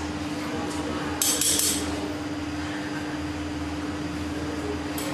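Steady hum of a glassworking furnace, with a brief clink of metal glassblowing tools on hot glass about a second in.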